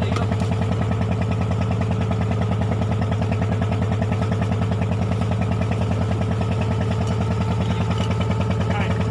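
A wooden fishing boat's engine running steadily, with an even, rapid chug.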